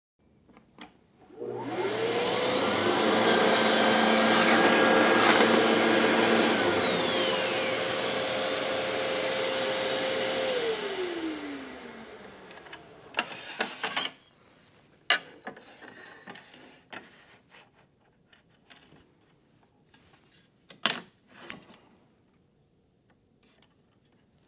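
Festool CSC SYS 50 cordless table saw starting up with a rising whine, cross-cutting through a board (the loudest part, a few seconds), running free, then winding down with a falling whine about ten seconds in. Several scattered knocks and clicks follow as the cut pieces and sliding table are handled.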